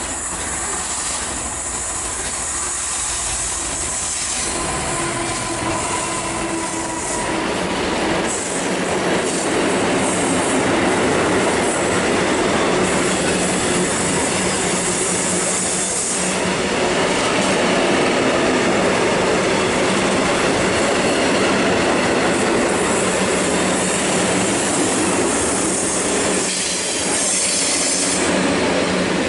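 Class 66 diesel freight locomotive running past at the start, its engine tones giving way within the first several seconds to the long, steady rolling clatter of covered freight wagons passing on curved track, with wheel squeal.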